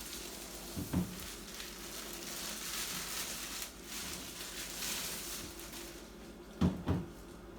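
Rustling and crinkling of packaging being handled, with a light knock about a second in and two quick knocks near the end.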